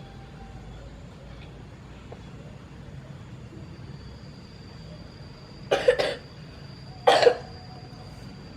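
A young boy coughing while ill: a quick double cough about six seconds in, then one more cough a second later.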